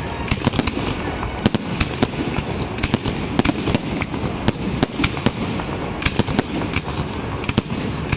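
A fireworks barrage: aerial shells bursting in quick succession, several sharp bangs and crackles a second over a continuous rumble.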